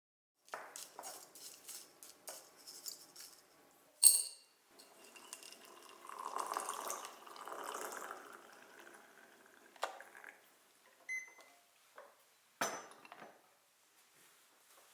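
Teaware sounds: small clicks and rattles, then a sharp ringing clink of glass or porcelain about four seconds in, the loudest sound. Water pours for a few seconds after it, followed by a few more clinks.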